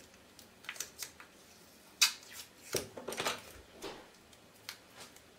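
Hands handling a plastic paint lid and craft materials: scattered light taps, clicks and rustles, the sharpest about two seconds in, with a short scratchy rustle around three seconds in.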